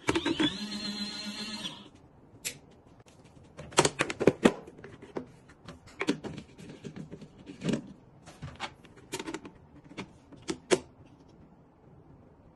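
A brief pitched tone at the start, then scattered clicks and knocks of a small plastic folding washing machine being handled, with a cluster of sharper knocks about four seconds in.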